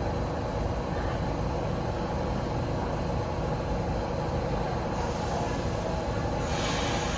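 R46 subway train standing in the station with its equipment running: a steady hum and rumble. A hiss comes in near the end.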